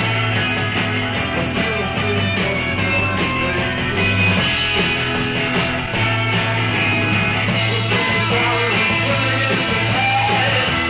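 Live rock band playing: two electric guitars, bass guitar and drums, with the bass holding long notes that change every second or two under a dense guitar wash and cymbals.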